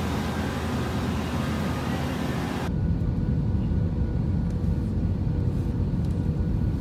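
Loud steady rush of noise on an airport apron beside a jet airliner. About three seconds in it cuts suddenly to the steady low rumble of a jet airliner's cabin in flight.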